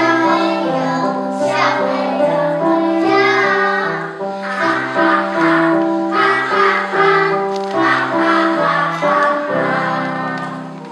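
A group of young children singing a Chinese children's song together over an instrumental backing of steady held notes. The song fades out near the end.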